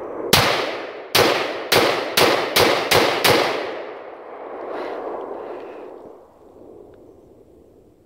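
Smith & Wesson M&P15 AR-style rifle firing seven semi-automatic shots in about three seconds, the shots coming faster towards the end. Each shot rings out with an echo, and a long echo trails off for a couple of seconds after the last.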